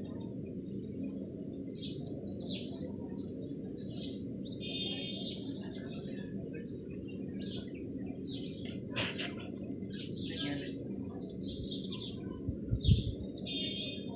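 Small birds chirping and trilling again and again over a steady low background hum, with a few brief knocks in the second half.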